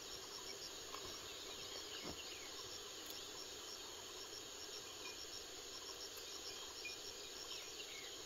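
Faint, steady insect chorus with a regular high-pitched chirping, and a few soft clicks.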